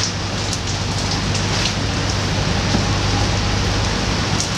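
Steady rain falling on a boat's covered deck and the water around it, with scattered drips ticking, over a steady low hum from the boat's engine.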